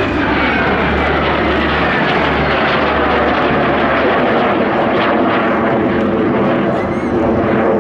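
Fouga Magister jet trainers flying past in formation, the twin Turbomeca Marboré turbojets of each aircraft giving a loud, steady jet noise. A high turbine whine falls in pitch in the first second or so as they pass.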